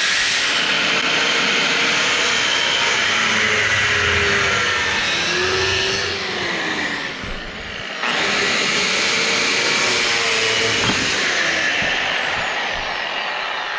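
A high-speed grinder cutting back a steel frame horn. It runs twice: each time it spins up with a rising whine, at the start and again about eight seconds in, and winds down with a falling whine.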